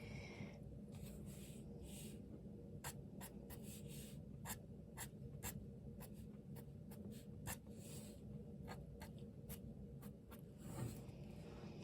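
Black fine liner pen drawing on watercolour paper: faint scratchy strokes broken up by many short, sharp taps of the nib.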